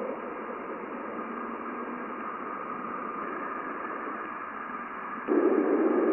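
Spacecraft recording of Jupiter's radio emissions played as sound: a dense hiss of static with faint steady tones running through it, jumping to a louder, rougher surge about five seconds in.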